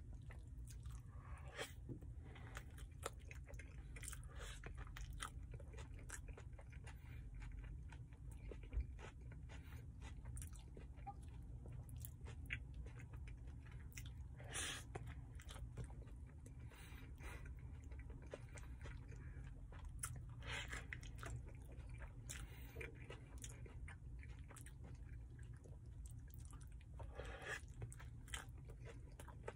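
Close-up chewing and biting of a steak burrito: wet mouth clicks with occasional crunches, over a steady low hum.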